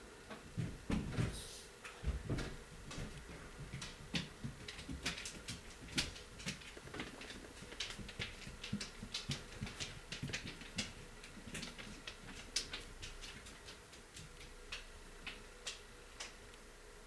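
Footsteps crunching in snow: an irregular run of short, crisp crunches, several a second, with a few heavier thumps in the first two seconds.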